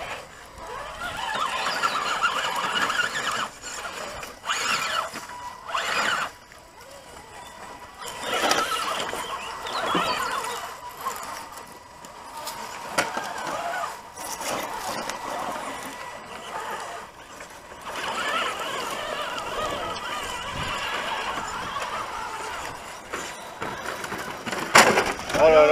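Whine of 1/10-scale RC crawler trucks' electric motors and gearboxes, rising and falling in pitch with the throttle as the trucks climb over rock, with a few short knocks.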